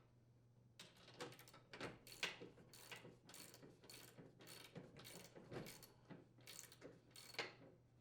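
Socket ratchet wrench clicking faintly in short, irregular strokes as a nut is tightened onto a snowblower's hex drive shaft.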